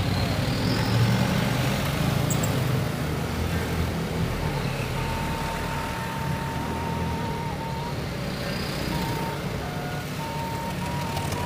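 Motorcycle engine running steadily on the move, with wind noise rushing over the microphone.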